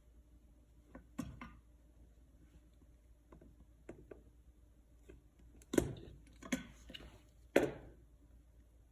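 Pocket knife stripping the sheathing off electrical cable: a few short, sharp scrapes and clicks, with the loudest cluster in the second half.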